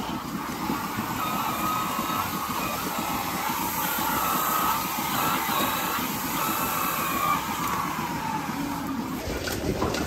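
Milking parlour machinery running steadily: a mechanical drone with a wavering whine over it, as milking units are handled under the cows. There are a few sharp knocks near the end.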